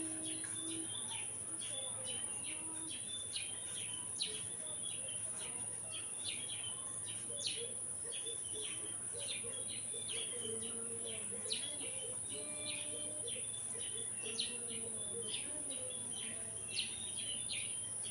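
Small birds chirping: many short, high chirps repeating over a constant high-pitched whine.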